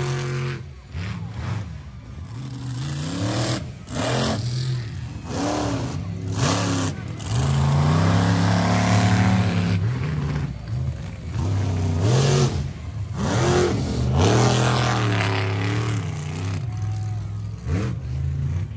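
Monster truck engine revving over and over, the pitch climbing and dropping every second or two, with a longer held rev about eight seconds in.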